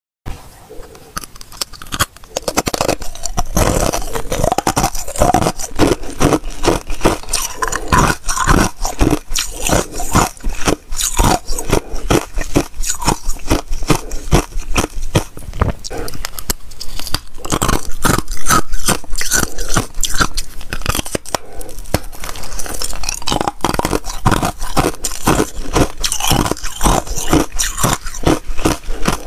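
Thin flakes of pure ice being bitten and chewed close to a clip-on microphone, a dense run of crisp crunches. The crunching begins in earnest about two seconds in.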